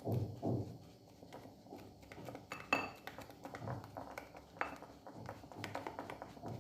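A utensil stirring a thick hair-dye mixture in a bowl, with rapid small clicks and taps against the bowl and one brighter ringing clink a little under three seconds in.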